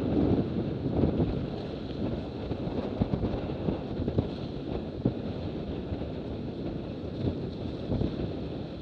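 Wind buffeting the microphone over the rush of water past the hulls of a Cirrus F18 catamaran sailing fast, with irregular knocks from the chop; strongest in the first second.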